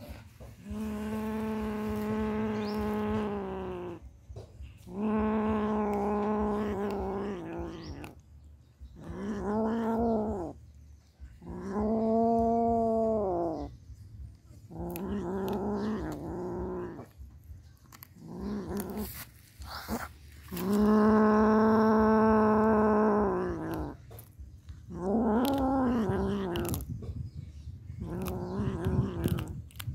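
Kitten growling and yowling in long, drawn-out moans, about nine in a row, some rising and falling in pitch. It is guarding the prey it is eating.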